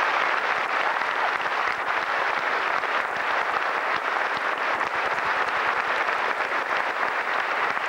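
Audience applauding in a large hall: steady dense clapping from many hands.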